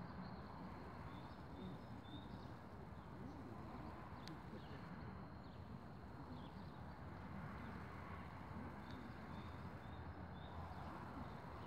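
Faint open-air ambience: a steady low rumble with small birds chirping now and then in short high notes, and a single sharp click about four seconds in.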